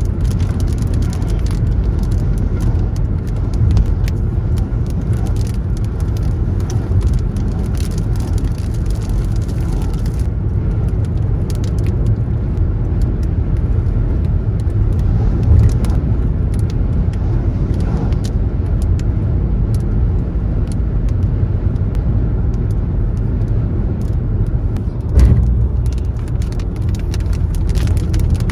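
Steady low rumble of a car driving, heard from inside the cabin: engine and tyre noise, with scattered light ticks and a few brief thumps.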